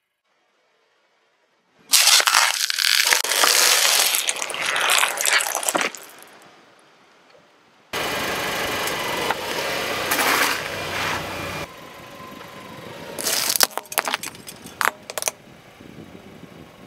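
A car tyre rolling over food on asphalt and crushing it, loud crunching and crackling in separate bursts starting about two seconds in, with a string of sharp cracks near the end.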